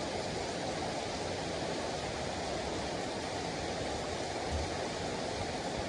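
Steady rain falling, an even rushing hiss with no break. A single brief low thump comes about three-quarters of the way through.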